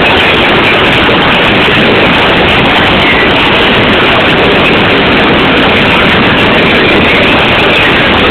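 Steady, loud running noise of the Nilgiri passenger hill train, heard from on board.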